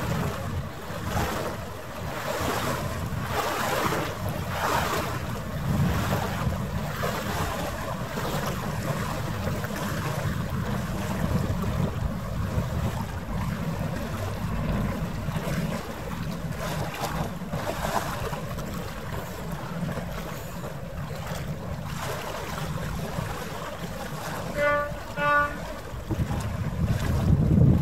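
Wind buffeting the microphone over a continuous low rumble and water noise. About three seconds before the end come two short pitched toots in quick succession.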